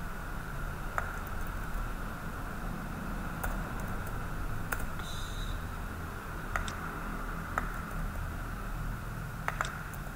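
A few scattered clicks of a computer mouse and keyboard, roughly one every second or two, over a steady background hum.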